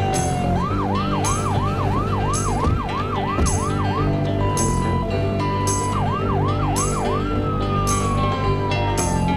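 Police car siren over music. It cycles in a quick rising yelp about two or three times a second, switches briefly to a two-tone hi-lo, returns to the yelp, then falls slowly in a long wail near the end. Underneath is a steady drum beat.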